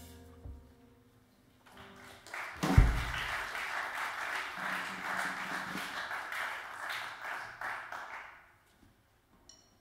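The last notes of a live band's tune fade out, then a small audience applauds for about six seconds. A single loud thump comes near the start of the applause, and the clapping dies away near the end.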